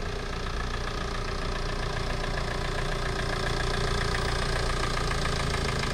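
Compact van's engine running at low revs as it pulls up slowly: a steady engine hum that grows a little louder toward the end.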